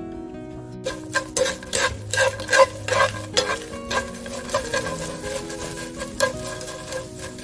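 Dried small anchovies being stir-fried in oil in a hot pan: a wooden spatula scrapes and tosses them in quick, irregular strokes over a light sizzle, starting about a second in.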